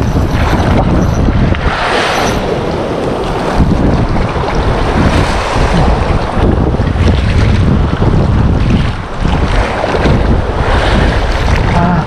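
Wind buffeting the microphone hard over the wash of sea waves on the shore.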